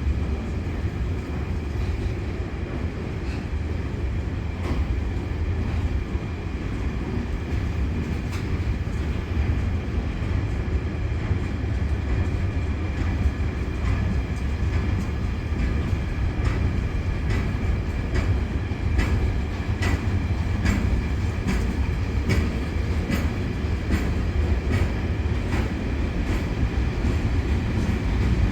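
Freight train rolling through the station with a steady low rumble. In the second half, wheels click rhythmically over the rail joints, about two clicks a second.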